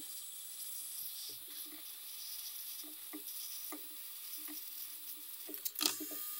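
Hot air rework gun blowing onto a small circuit board to dry it after an alcohol cleaning: a steady airy hiss with a faint thin whine from its fan. Near the end there is a short, louder burst of noise.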